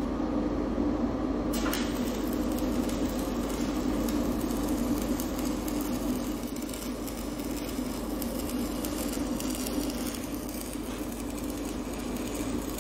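Stick-welding arc burning steadily as an electrode is run along a pipe joint.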